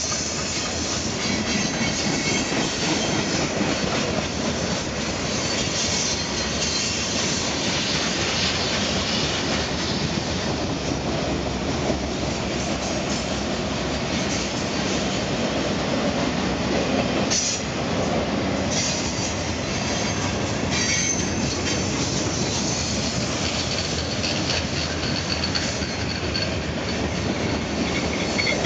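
Freight cars of a mixed freight train rolling past: a steady rumble and clatter of steel wheels on the rails, with a faint high-pitched wheel squeal near the end.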